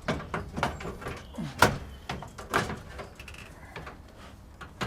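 Philips tape deck unit being pushed into its rack on slide runners: sliding scrapes with several knocks and clicks, the sharpest about one and a half seconds in.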